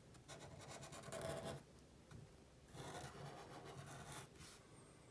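Sharpie fine-point felt-tip marker drawing on paper, faint: two spells of scratchy pen strokes, each about a second and a half long, with a short pause between.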